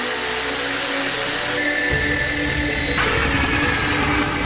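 Chicago Electric jigsaw cutting through a wooden board, changing about three seconds in to a drill boring into wood with a spade bit, with background music underneath.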